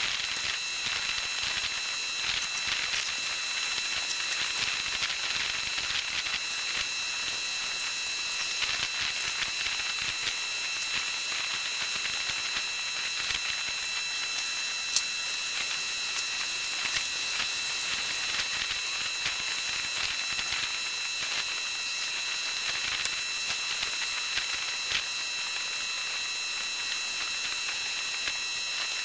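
Steady high hiss with scattered faint crackles, a sharper click about fifteen seconds in, and a thin steady high-pitched whine underneath.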